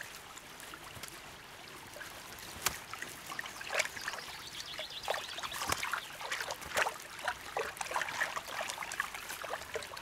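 Eurasian beaver foraging in wet mud at the water's edge: quiet, irregular wet clicks and small splashes, over a faint trickle of water.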